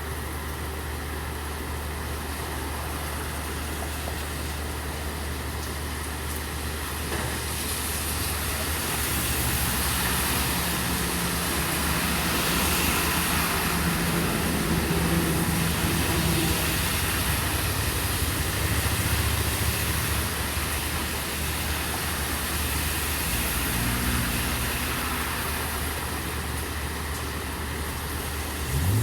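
Steady rain hiss over a constant low hum, with a vehicle driving through water on the wet street, swelling over several seconds about a third of the way in and fading away again.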